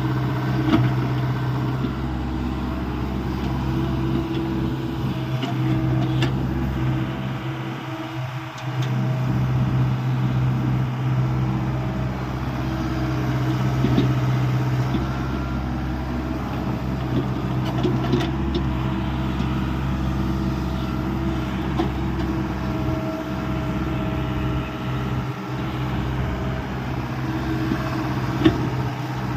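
A Hyundai 85A Smart mini excavator's diesel engine runs steadily while it digs, with occasional sharp knocks. The engine note dips briefly about eight seconds in.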